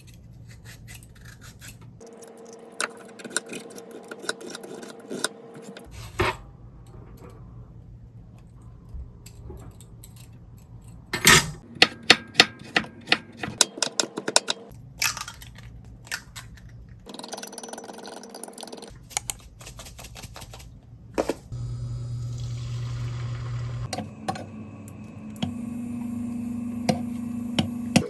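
Kitchen food-prep sounds in a string of short edited clips: scattered clicks, clinks and knocks of utensils and dishes, with a run of sharp knocks about halfway through.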